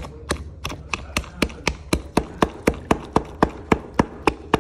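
Wooden pestle pounding roasted vegetables in a clay mortar, a steady beat of about four sharp knocks a second as the jaew dipping sauce is mashed and mixed.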